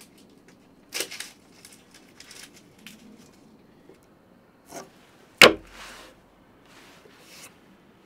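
A board of split wooden sticks being handled and turned over on a wooden table. There are a few knocks and scrapes of wood on wood, the loudest a sharp knock about five and a half seconds in.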